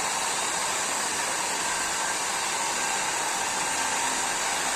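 Nova foldable hair dryer running continuously, a steady rush of blown air with a faint whine from its motor.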